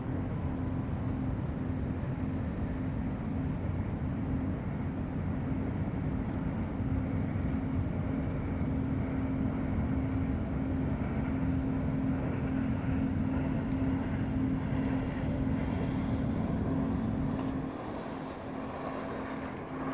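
A steady, distant engine drone holding one low pitch, over a low rumble that drops away near the end.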